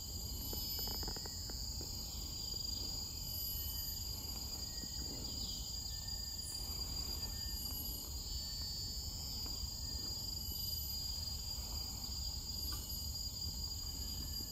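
Steady high drone of forest insects, several continuous shrill tones layered together, over a low rumble.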